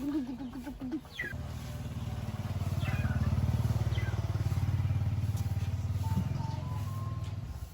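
A motor vehicle's engine is heard coming closer and going away, swelling from about a second in to its loudest midway, then fading near the end. A short wavering animal call is heard at the start, and a few birds chirp over the engine.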